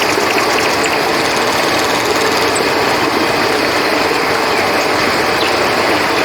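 Steady rushing of river water, with crickets chirping high above it.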